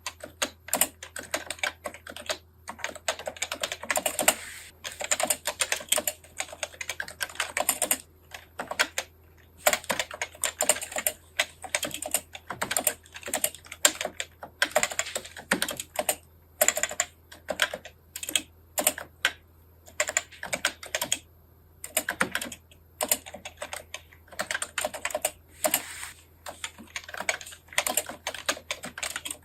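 Fast typing on a computer keyboard, entering Japanese text with thumb-shift (NICOLA) kana input: rapid runs of key clicks broken by brief pauses.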